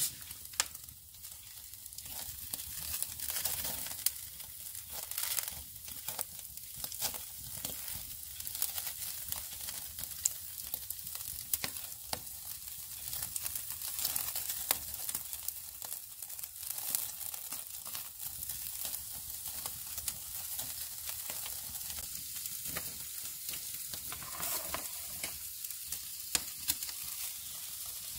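Meat sizzling on a wire grill rack over glowing embers: a steady high hiss with frequent sharp crackles and pops.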